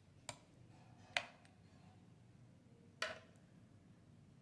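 A steel spoon clicking three times against a ceramic dish while spreading yogurt over fried eggplant slices; the second click is the loudest.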